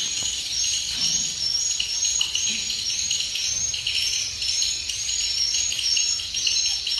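Dense chorus of edible-nest swiftlets twittering: many short, high chirps overlapping without a break.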